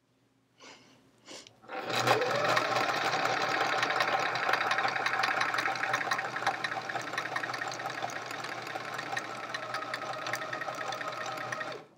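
Sewing machine stitching a seam: after a couple of soft clicks, the motor speeds up about two seconds in and runs steadily for about ten seconds, then stops just before the end.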